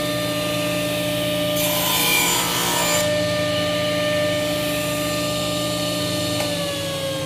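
Table saw running with a steady motor whine while a board is cross-cut. About a second and a half in, the blade cuts through the wood, adding a rasping cutting noise for about a second and a half. Near the end the saw is switched off and its whine falls in pitch as the blade spins down.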